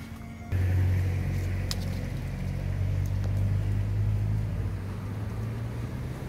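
Steady low engine-like hum, as of a motor vehicle running nearby, starting suddenly about half a second in, with one faint sharp click about a second later.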